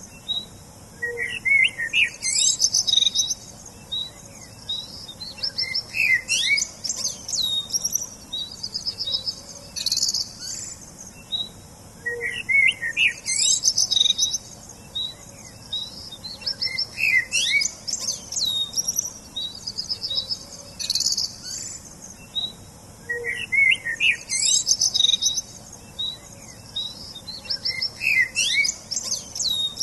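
Songbirds chirping and singing, with quick high trills and short whistled calls. The same run of calls comes round again about every eleven seconds.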